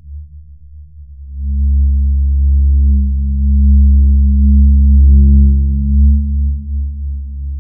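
A loud, deep, steady hum with a few overtones above it. It swells about a second and a half in and eases off near the end.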